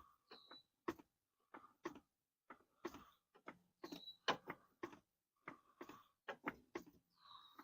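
Car jack being worked to raise the car another notch: faint, irregular clicking and ticking, about two clicks a second, with a few brief high squeaks.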